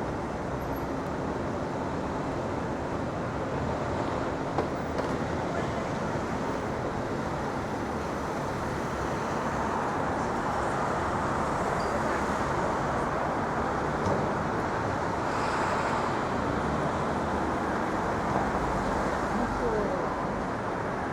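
Steady city street traffic noise: a continuous mix of passing vehicles and engines.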